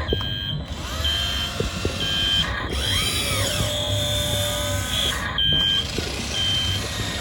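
Radio-controlled model construction machine running, with a short high beep repeating about once a second like a reversing alarm over a low steady motor hum.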